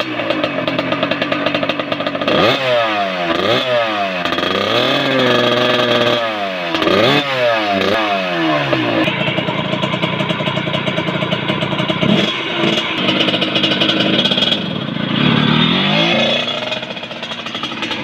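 1999 Kawasaki KX80's small single-cylinder two-stroke engine, heard close at its FMF silencer: idling, then blipped hard in a run of quick revs with one longer held rev in the middle. From about 9 s it runs steadily, and near the end it revs up and falls back as the bike pulls away.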